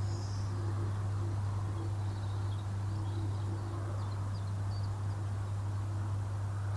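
A steady low hum throughout, with faint bird chirps here and there in the background.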